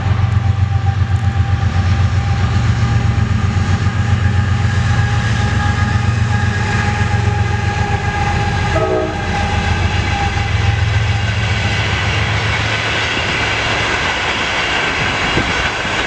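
TE33A diesel locomotive, with its GE V12 diesel engine, running past at speed and hauling a passenger train: a heavy, pulsing engine rumble that eases off after about twelve seconds as the coaches roll by, with steady ringing tones from the wheels and rails above it.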